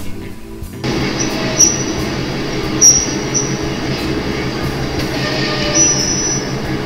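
Model train locomotives rolling along the layout's track, giving a steady motor hum and wheel rumble. High wheel squeals cut in briefly a few times, with a longer one near the end.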